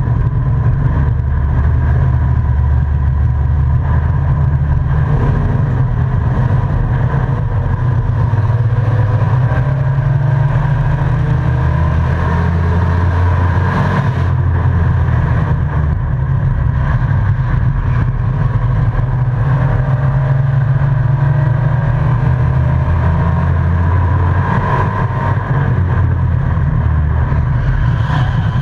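Race truck's engine heard from inside the cab, running hard at racing speed, its pitch rising and falling with the throttle through the laps.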